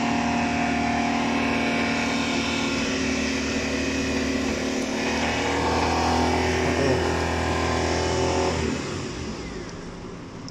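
An engine running steadily, a deep hum with a few small changes in pitch, which stops about eight and a half seconds in.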